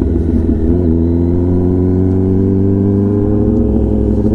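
Kawasaki ZX-10R inline-four engine running through an SC-Project titanium exhaust while riding. The pitch wavers briefly just under a second in, then the revs climb slowly and evenly as the bike pulls.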